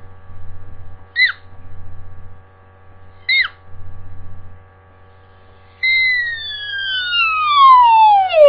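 A high whistle-like tone: two short falling chirps, then a long whistle gliding steadily down in pitch from high to low over the last few seconds. A low steady hum runs beneath.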